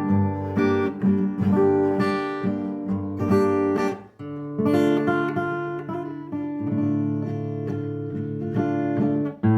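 Acoustic guitar strumming and picking chords of a slow waltz, with a brief break about four seconds in.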